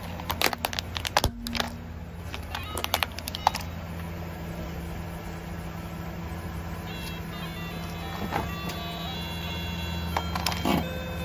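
A pink plastic toy guitar cracking and clicking under a car tyre during the first few seconds, over the steady low hum of the car's engine idling. Later, its buttons are pressed and the toy plays a few short electronic notes.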